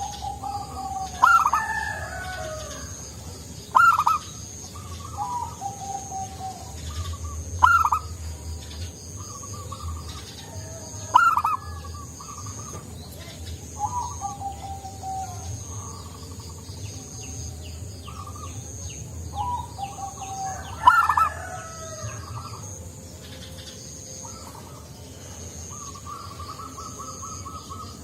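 Zebra dove (perkutut) singing: about five loud, short, arching calls, each trailing off into a falling note, with softer runs of rapid cooing notes between them. A faint high-pitched pulsing tone runs in the background.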